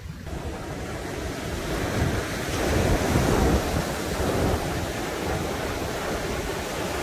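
Ocean surf breaking and washing up a sandy beach, swelling louder a few seconds in, with wind buffeting the microphone.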